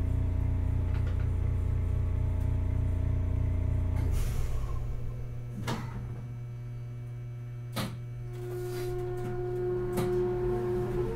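Hakodate City Tram 3000 series car 3002 with its Toyo GTO VVVF inverter, heard on board. A steady pulsing low hum stops about four seconds in, followed by two or three sharp clicks. A steady inverter tone sets in near the end, and the inverter whine begins to rise in pitch as the tram starts to accelerate.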